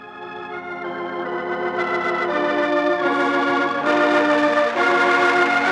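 Organ music cue closing an act of a radio drama: a slow run of sustained chords that swells in loudness.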